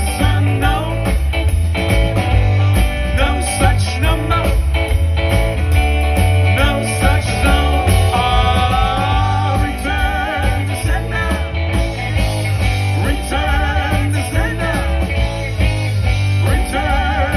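Live rock-and-roll band playing through a PA: electric guitar, bass and drums, with a lead line that bends and wavers in pitch midway through.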